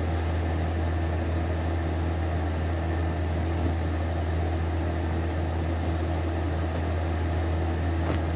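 Steady low mechanical hum, unchanging in level, with a few faint rustles of denim being handled.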